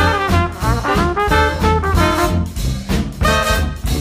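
Jazzy, swing-style background music with brass over a moving bass line.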